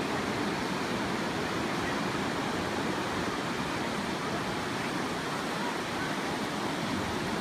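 Ocean surf breaking and washing up the beach: a steady rushing noise.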